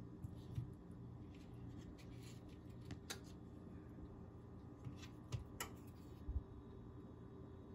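Faint, steady low hum with a few scattered sharp clicks and ticks, the clearest about three seconds in and again a couple of seconds later.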